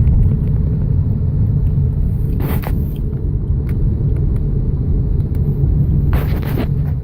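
BMW N54 twin-turbo straight-six car driving: a steady low rumble of engine and road. Two short rushing noises come about two and a half and six seconds in.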